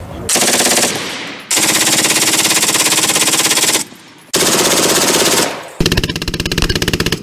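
Long bursts of full-automatic fire from a .303 Browning Mark II aircraft machine gun, four bursts with short gaps between them. The last burst sounds lower, with a slower, more widely spaced rhythm of shots.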